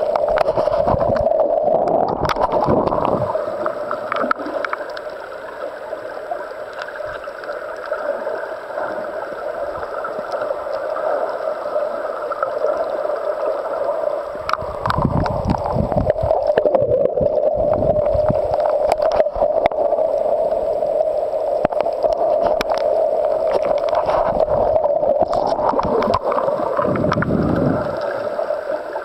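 Underwater sound picked up through a camera's waterproof housing: a steady muffled hum, with low gurgling surges three times, at the start, about halfway and near the end.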